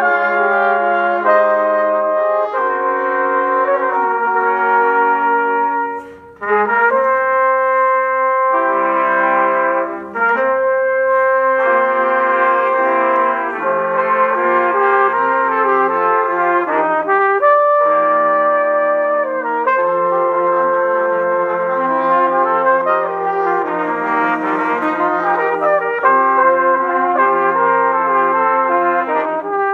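Trumpet ensemble of trumpets and flugelhorns playing a piece in several parts, holding chords that change together, with brief breaks in the sound about six and ten seconds in.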